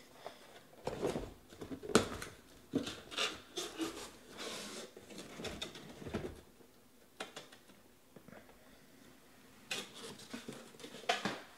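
Cardboard shipping case scraping and rubbing as it is worked off a tightly packed stack of shrink-wrapped card boxes, with a sharp knock about two seconds in and more scraping near the end.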